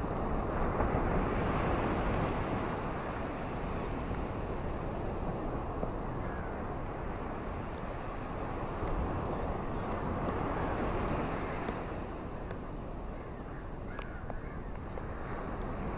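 Stormy rain-and-wind ambience: a steady rushing noise that swells twice, with wind buffeting the microphone.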